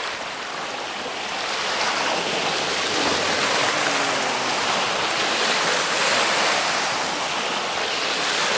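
Ocean waves breaking and washing on a shore: a continuous rushing surf that swells a little louder a couple of seconds in and again near the end.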